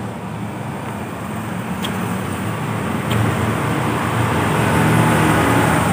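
Road traffic passing close by: a steady vehicle noise with a low hum that grows louder toward the end, with two faint clicks about two and three seconds in.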